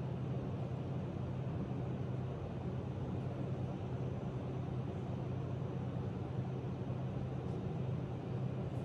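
Steady low droning hum with an even hiss behind it, unchanging throughout: background noise of a room.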